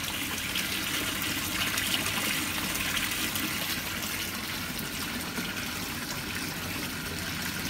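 Small rock-wall fountain with its water pouring steadily from a pipe spout into a koi pond, a continuous splashing.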